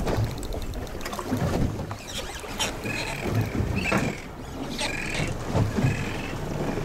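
Small boat rocking in the swell, waves slapping against its hull in low irregular thuds about once a second, with wind buffeting the microphone and a few short high squeaks.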